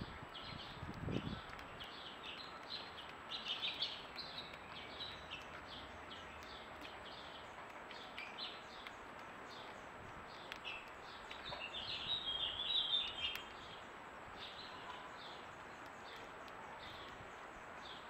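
Small songbirds chirping: a running string of short, high chirps, busiest about three to four seconds in and again around twelve to thirteen seconds, over a faint steady hiss. A soft low thump about a second in.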